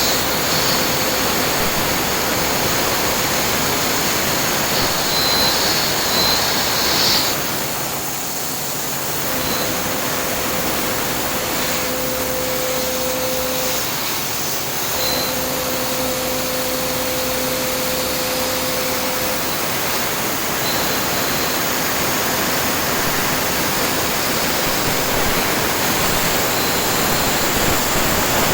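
Yangtuo VMC950 CNC vertical machining centre milling carbon steel: a loud, steady rushing hiss, with a steady hum that comes in for two stretches of about four seconds each in the middle.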